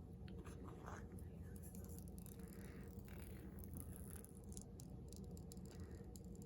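Near silence: faint steady room hum with a few light clicks and rustles of handling.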